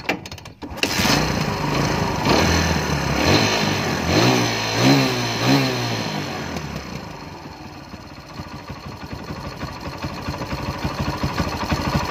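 Kawasaki Barako 175 single-cylinder four-stroke motorcycle engine running, revved in about five quick blips and then settling back to a steady idle.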